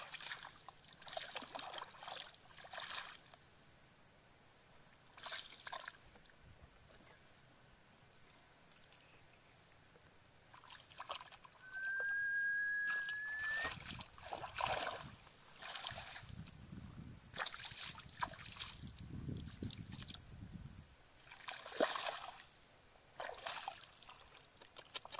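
Shallow muddy water sloshing and splashing in scattered bursts as hands grope through it by hand for fish. A low rumble runs for several seconds in the middle, and a brief thin rising whistle sounds about halfway.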